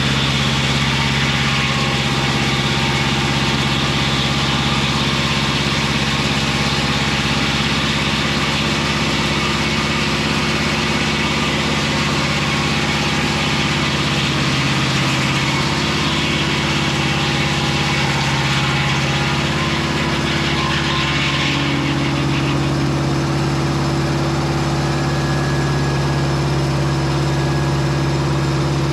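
Mobile Dimension circular-blade sawmill running: its engine hums steadily under a broad rushing noise, and the rushing noise eases about two-thirds of the way through.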